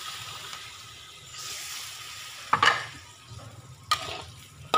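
Water poured into a hot wok of fried fish and spice paste, sizzling and fading away over the first two seconds. A metal spatula then scrapes and knocks against the steel wok as it stirs, loudest about two and a half seconds in and again near four seconds.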